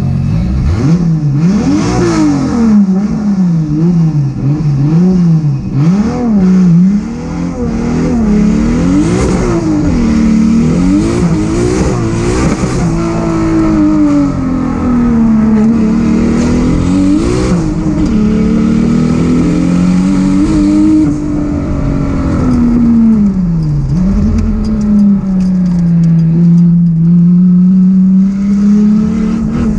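Turbocharged Toyota 7M-GTE inline-six in a VK Commodore sprint car, heard from inside the cabin, pulling away hard and being driven flat out. For about the first dozen seconds the revs climb and drop in quick succession; after that they rise and fall in longer, slower sweeps, with one deeper drop about three quarters of the way through.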